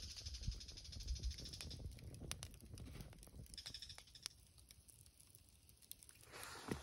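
Wood campfire on a foil-lined fire grill crackling faintly, with a few sharp pops about two to four seconds in.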